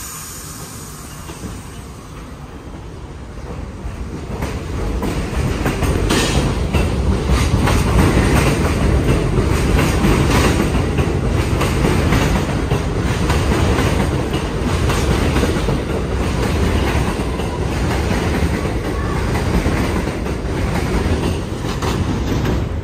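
New York City Subway 1 train of R62A cars pulling out of the station and accelerating past. The wheel and motor noise grows louder over the first several seconds, then holds as a steady loud run with a rapid clickety-clack of wheels over the rail joints.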